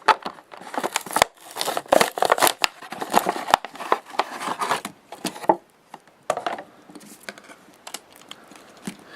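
Toy packaging being opened by hand: cardboard and plastic crinkling, tearing and clicking, busy for about the first five seconds, then a few scattered clicks.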